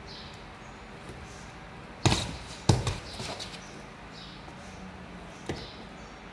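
A kitten's thuds on a tiled floor as it jumps after a string toy: two loud thumps about two seconds in, half a second apart, and a lighter knock near the end, with faint high chirping repeating in the background.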